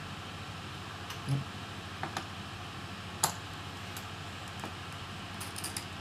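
Scattered light clicks and taps of small laptop parts and screws being handled on a laptop's case during disassembly, irregularly spaced. The sharpest click comes a little past three seconds in, and a quick run of faint ticks comes near the end, over a steady low hum.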